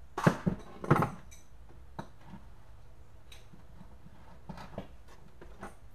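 Metal hydraulic hose fittings and adjustable wrenches clinking and knocking on a wooden workbench as they are handled: a quick cluster of knocks in the first second, then a few scattered light ticks.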